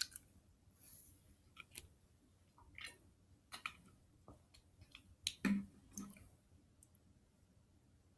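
A short rustle as a green plastic bottle is handled, then faint, scattered small clicks and rustles, the loudest a pair about five and a half seconds in.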